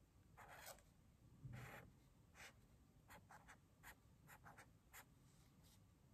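Faint scratching of a felt-tip pen drawing short strokes on paper: about a dozen quick strokes, the longest about one and a half seconds in.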